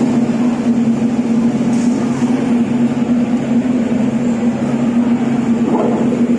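A steady, loud machine hum with a constant low tone that does not change, over a dense wash of noise.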